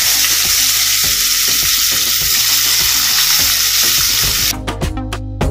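Small turmeric-coated shrimp sizzling steadily as they fry in hot mustard oil in a kadai. About four and a half seconds in, the sizzle cuts off and background music with a steady beat starts.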